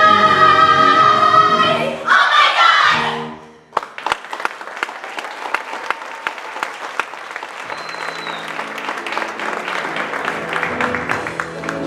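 A female chorus holds a final sung chord to end a stage musical number and cuts off at about two seconds, followed by a brief burst of cheering. From about four seconds in the audience applauds, and soft instrumental music comes in under the clapping about halfway through.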